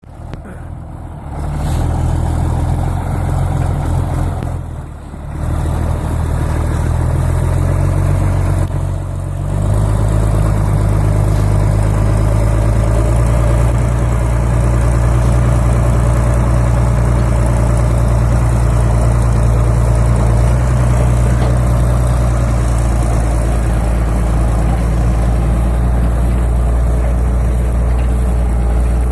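County 1454 four-wheel-drive tractor's diesel engine running under load while ploughing. The engine note dips briefly twice in the first ten seconds, then holds a steady pull.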